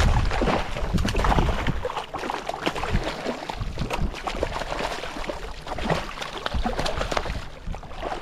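Water splashing and sloshing, with many short knocks and clicks. Wind buffets the microphone for about the first two seconds.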